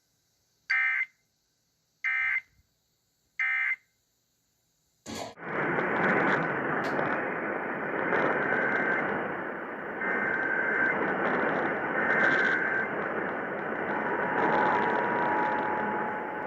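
Three short warbling bursts of Emergency Alert System end-of-message data, about a second and a half apart, closing the test message. About five seconds in, a steady hiss of radio static starts and runs on, with a faint steady tone joining near the end.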